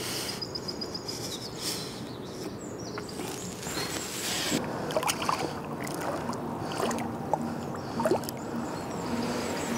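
Lake water sloshing and splashing as a large mirror carp is lowered in a retaining sling into the shallow margin and released, with a few short knocks and splashes as the fish is handled and swims off.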